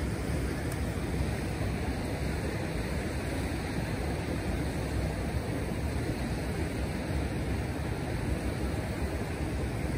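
Steady low rushing noise with no distinct events, outdoors in heavy snowfall at a hot-spring pool.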